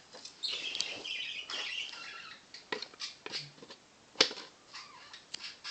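Plastic scraping and rustling, then a series of sharp clicks and knocks, the loudest about four seconds in, as a plastic model airliner is fitted onto its plastic display stand.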